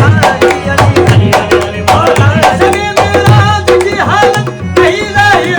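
Qawwali music played live: a tabla keeps a fast, steady beat under a melodic line that bends up and down.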